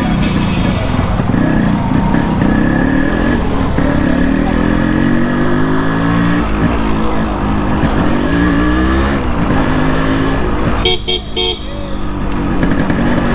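Yamaha RX100's single-cylinder two-stroke engine running on the move, its pitch rising and falling several times as the bike speeds up and eases off. Near the end the sound briefly drops and breaks up into a few clicks.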